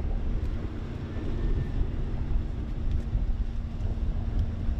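Steady low rumble of a Steamship Authority ferry's engines, with a constant hum running through it, under wind buffeting the microphone.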